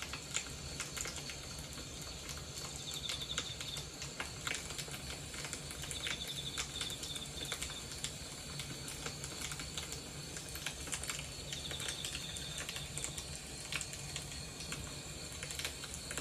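Fire crackling in a Wood & Burn Stovey S miniature stove: irregular sharp pops and ticks over a low steady hum. A short high trill recurs every few seconds.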